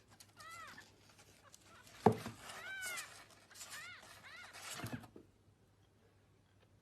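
Cat meowing five or so times in short calls that rise and fall in pitch, with a sharp thump about two seconds in and a softer knock near five seconds.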